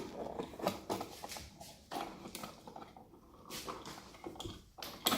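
Light switch being handled and fitted into its wall box: scattered plastic clicks and scratchy rustling, with a sharper knock at the start and another near the end.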